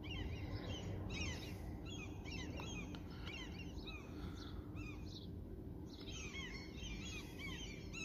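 Small birds chirping: many short, quick, overlapping high calls that pause briefly about five seconds in, over a steady low background rumble.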